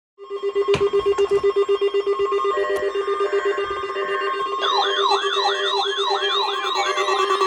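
Electronic alarm tones that start abruptly: a steady low tone pulsing rapidly, about six or seven times a second. About four and a half seconds in, a warbling siren tone joins it, sweeping up and down about twice a second.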